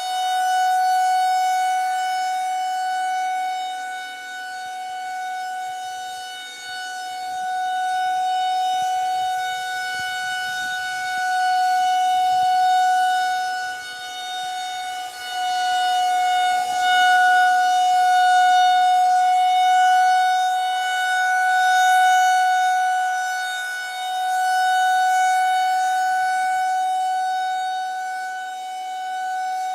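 Federal Signal 2001-130 rotating outdoor warning siren sounding its steady alert signal, a single held tone that swells and fades every few seconds as the siren head turns.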